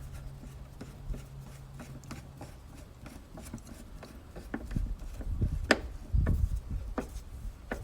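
Long screwdriver working a screw on a GMC Envoy's air cleaner cover: rubbing and scraping of the tool with scattered clicks and knocks, busier and louder in the second half, with a couple of sharp clicks. A low steady hum underneath stops about two seconds in.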